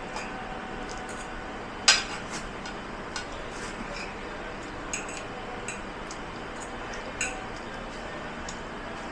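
Dishes and cutlery clinking and clattering as they are handled and washed, with one loud clink about two seconds in and a few lighter ones later, over a steady hiss.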